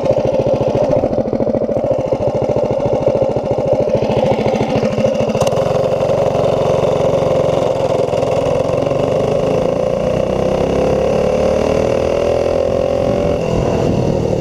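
Doodlebug mini bike's Predator 212 single-cylinder engine at full throttle during a 0–30 acceleration run, pulling through a clutch the rider says is shot. The engine note climbs in pitch from about ten seconds in as the bike gathers speed, with wind noise building after about five seconds.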